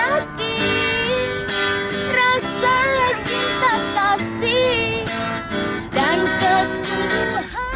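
Music with strummed acoustic guitar under a wavering melody line.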